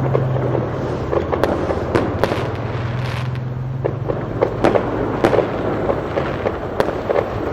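Fireworks going off: a run of sharp bangs and crackles at irregular intervals, several close together near the middle and the end, over a steady low hum.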